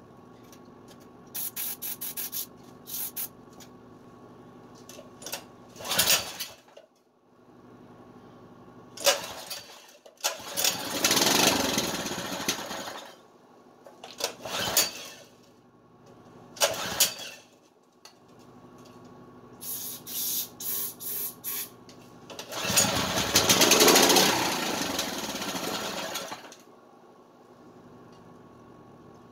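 Baja 196cc single-cylinder engine being pull-started on starting fluid: a series of separate pulls of the recoil starter, two of them longer spells where the engine tries to fire and sputters for a couple of seconds, without settling into a run.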